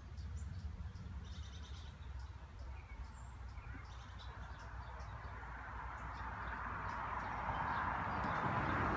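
Faint bird chirps over a low outdoor rumble, then the rushing noise of a vehicle drawing near, growing steadily louder through the second half.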